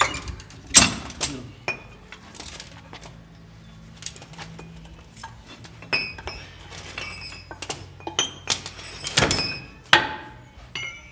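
Metal clicks and clinks of heavy ratchet tie-down straps being released and unhooked from a car wheel, with a few heavier knocks, the loudest about a second in and again near the end.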